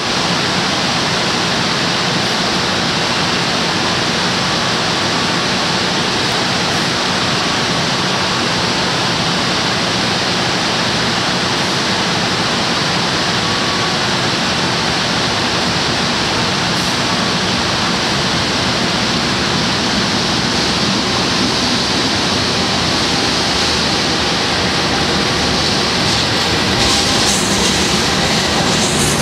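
A steady, loud rushing noise throughout. Near the end an arriving passenger train's diesel locomotive draws alongside, adding a brighter, louder clattering hiss of wheels and engine.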